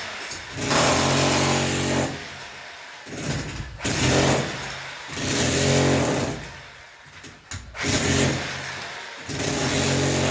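An electric power tool run in short bursts of a second or so, starting and stopping about six times.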